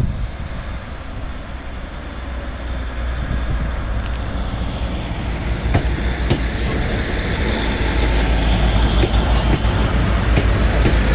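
Class 156 Super Sprinter diesel multiple unit passing close by at a platform: a low drone from its underfloor Cummins diesel engines, with wheel and rail noise, growing louder as it draws alongside. A few sharp clicks come from the wheels in the second half.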